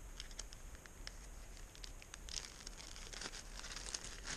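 Small sharp clicks and short bursts of rustling from hands handling gear and clothing, the rustles loudest about halfway through and near the end.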